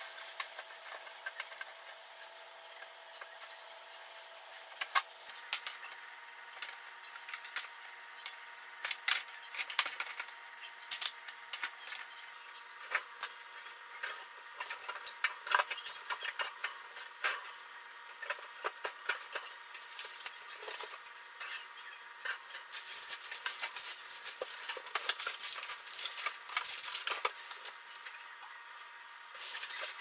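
Irregular clicks, knocks and clatter of bottles, jars and plastic containers being taken off and set back on refrigerator shelves and door bins, busier in the second half, over a faint steady hum.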